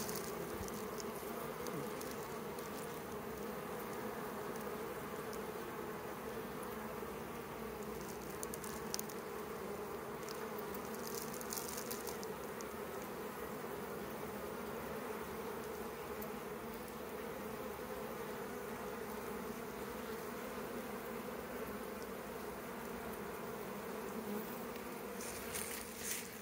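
Honeybees buzzing in a steady hum at a hive entrance crowded with bees, the sound of a busy, strong colony. A few short scratchy noises near the end.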